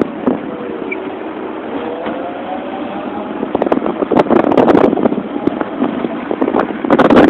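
Riding on a Motorino XPD electric scooter: steady road and wind noise with a faint rising whine, and crackling wind buffeting on the microphone from about three and a half to five seconds in and again near the end.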